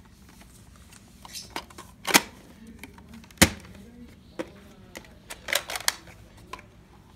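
Sharp plastic clicks and knocks from a Nerf Fortnite foam-dart blaster being handled and readied for loading, two loud ones about two and three and a half seconds in and a quick run of clicks near the end.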